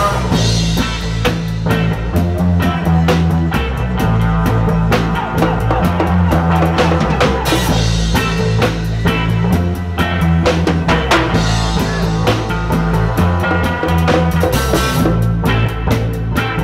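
Live reggae band playing, with a repeating bass guitar line and a steady drum-kit beat under guitar and keyboard.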